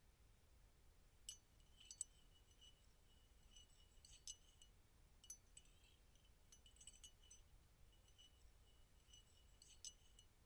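Near silence with faint, scattered high metallic tinkling and clinking that starts about a second in and recurs irregularly.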